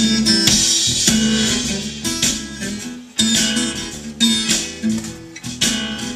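Guitar music, plucked and strummed, playing through an original 1968–72 Chevy C10 AM dash radio rebuilt with an Aurora AM/FM/USB board.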